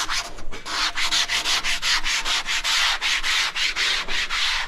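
Sanding block rubbed in quick back-and-forth strokes along the cut edge of a large-format tile, several strokes a second, smoothing the freshly chamfered edge.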